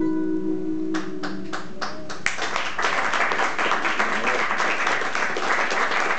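Two acoustic guitars letting their final chord ring out, as an audience begins to applaud: a few scattered claps about a second in, then steady clapping from just over two seconds in.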